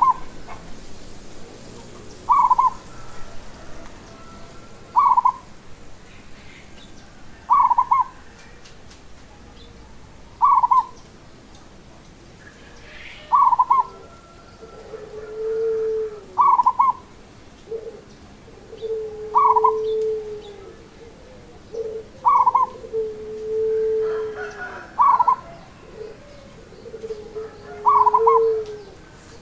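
Zebra dove (local Javanese perkutut) cooing. A short clipped note repeats about every two and a half seconds. From about halfway, lower drawn-out rolling coos join in between the notes.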